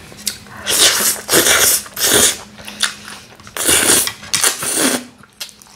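A person slurping noodles in about five loud pulls, close to the microphone.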